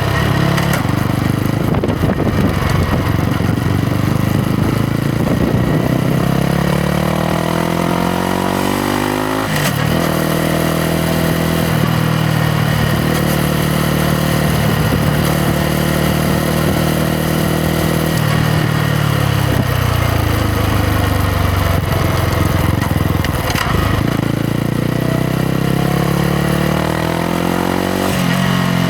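Yamaha MT-125's single-cylinder four-stroke engine under way. Its revs climb for about nine seconds, then drop sharply at a gear change. They hold steady for several seconds, fall away as the bike slows, and climb again near the end.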